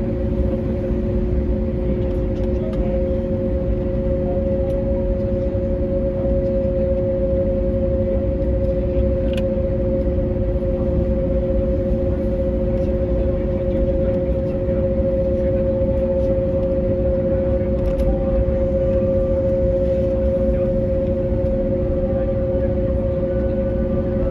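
Cabin noise of an Airbus A321neo taxiing after landing: its Pratt & Whitney PW1100G geared turbofans idle with a steady two-tone hum over a low rumble, and a few faint knocks come through the cabin.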